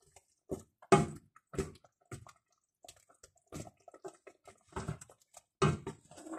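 A wooden spoon stirring chicken pieces in a steel pot: a string of short, irregular wet squelches and knocks, the loudest about a second in.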